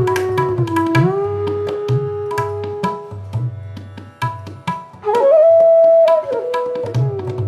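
Instrumental music in an Indian classical style: a flute plays long held notes that slide down in pitch over tabla strokes. The melody drops out for a couple of seconds in the middle and comes back about five seconds in, while the drumming continues.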